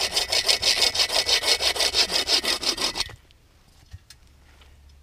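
Hand saw cutting through a dead branch with quick, even push-pull strokes, about five or six a second, stopping abruptly about three seconds in as the piece cuts through. A faint knock follows about a second later.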